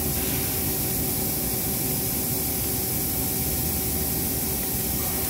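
Steady running hum and hiss of machine-shop equipment beside the CNC machining centre, with faint steady tones.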